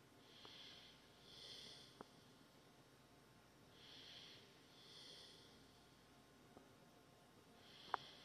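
Faint, slow breathing close to the microphone, each breath a soft in-and-out pair of hisses every few seconds. A few small clicks come through, the sharpest just before the end.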